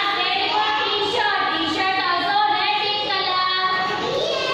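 A group of young children singing a song together, their voices held on long notes.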